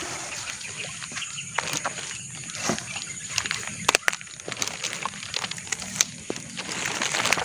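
A plastic bag rustling and crinkling as a large eel is handled into it, with scattered sharp clicks and taps.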